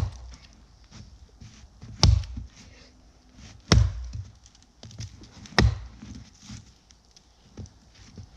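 Axe chopping into a tree trunk: three heavy blows about two seconds apart, with lighter knocks between.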